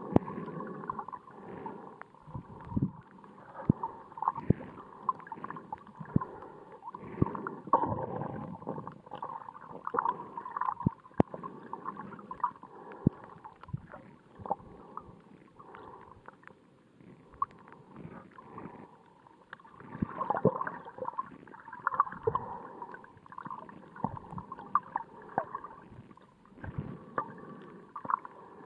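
Underwater sound picked up through a camera's waterproof housing: a muffled wash of moving water with many irregular sharp clicks and knocks, swelling every few seconds.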